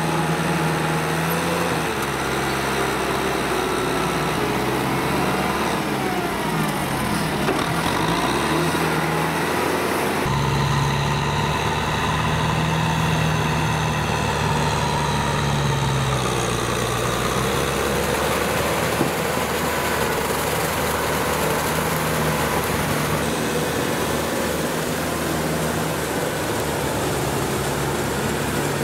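Kubota tractor diesel engine running steadily as it works through deep mud. Its pitch rises and falls, and the sound changes abruptly about ten seconds in.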